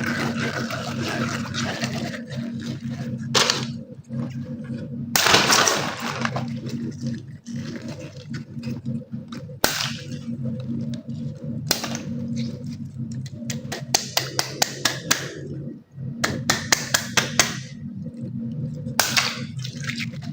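Water balloons being cut open: sharp pops and bursts with a rush of water, the biggest lasting about a second, and two runs of quick clicks later on. A steady low hum runs underneath.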